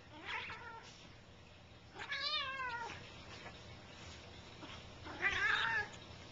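Adult cat meowing three times while play-wrestling with a Bengal kitten: a short cry, then a long wavering one about two seconds in, and the loudest near the end.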